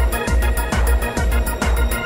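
Electronic background music: sustained organ-like keyboard chords over a steady kick-drum beat, about two beats a second, with ticking hi-hats.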